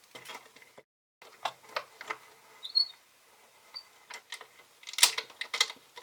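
Light clicks and knocks of a wooden workpiece and tools being handled at a drill press, with a short high squeak near the middle and a denser run of clicks about five seconds in.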